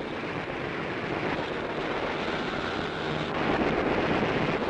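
Steady rushing drone of fighter aircraft engines on a newsreel soundtrack, growing louder about three seconds in.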